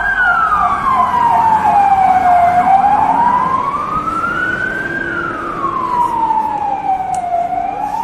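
Fire engine siren wailing, sliding slowly up and down in pitch, each rise or fall taking about two and a half seconds.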